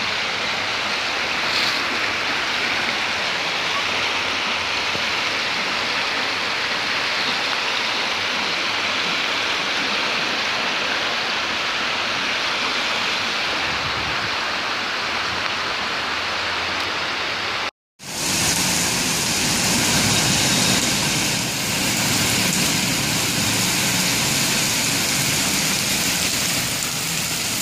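Floodwater rushing through a city street: a loud, steady rush of water. It cuts out for an instant about two-thirds of the way through and comes back fuller and deeper.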